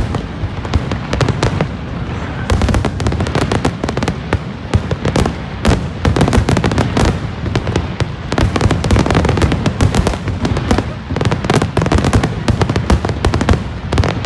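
A fireworks display, with many shells bursting in rapid, overlapping succession: a dense run of sharp bangs and crackles over a continuous low rumble.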